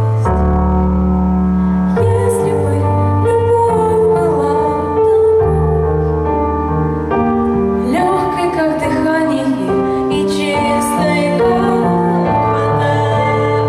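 A girl's solo singing voice, amplified through a microphone, over a backing track of piano or keyboard chords and sustained bass notes.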